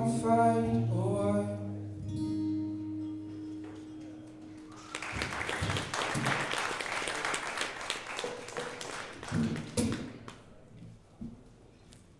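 A live song ends: the last sung words over acoustic and electric guitar, then a held note ringing out and fading. About five seconds in, a small audience claps for about five seconds, and the applause dies away.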